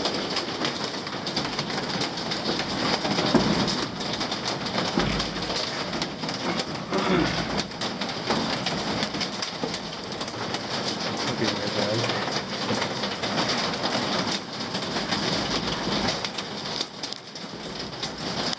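Steady rain falling, with scattered knocks and rustles close to the microphone.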